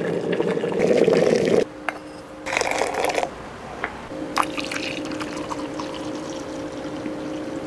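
Hot water and coffee being poured while coffee is made with an electric kettle and a French press: a loud pour at the start and a shorter one about two and a half seconds in, then a quieter, steadier sound with a faint hum.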